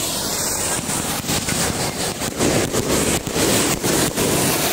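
Ground fountain fireworks spraying sparks: a continuous rushing hiss with many irregular sharp pops and crackles.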